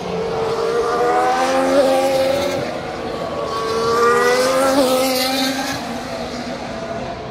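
Two Formula 1 cars, 1.6-litre turbocharged V6 hybrids, pass one after the other about three seconds apart. Each engine note rises in pitch as it goes by, with a brief wobble near its loudest point.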